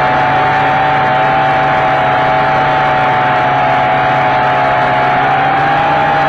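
Toy quadcopter's electric motors and propellers whirring steadily in flight, picked up by its own onboard camera: a loud, high whine made of two close tones that drift slightly against each other, over a rushing hum.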